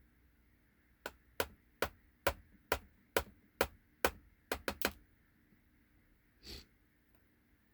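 Sharp taps from an Ultion euro lock cylinder as its pins are taken out during gutting. There are about nine taps at a steady two a second, then three quick ones in a row.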